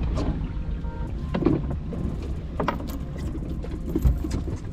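Steady low rumble with a few short knocks and clatters from gear being handled in a fishing boat.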